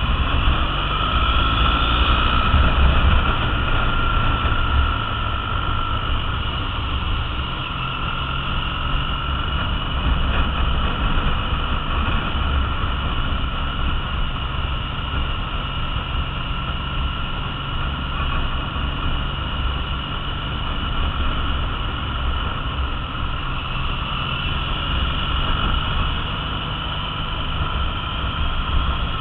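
Triumph Bonneville T100's air-cooled parallel-twin engine running under way at a steady road pace, its pitch climbing a little about a second in and again near the end, over the rush of riding.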